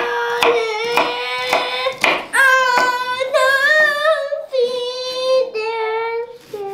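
A young girl singing a song in long, high, held notes. Behind it, a knife chops on a cutting board at a fairly steady pace of about two to three strokes a second.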